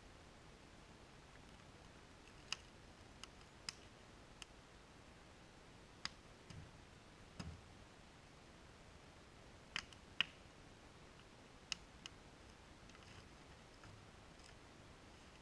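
Split firewood being laid into a metal fire ring: scattered sharp wooden clicks and knocks, with two dull thuds about six and seven seconds in as logs are set down.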